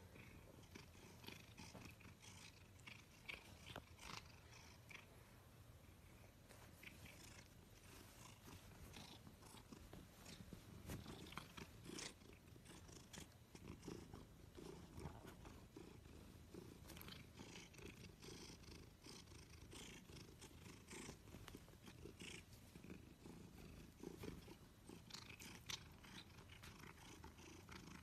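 Domestic cat purring faintly and steadily close up, with scattered small clicks and rustles.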